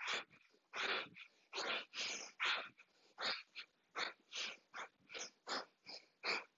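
A woman's rapid rhythmic breathing, sharp inhales and exhales in quick alternation at about two to three breaths a second: kundalini breath-work paced to quick side-to-side bends of the torso.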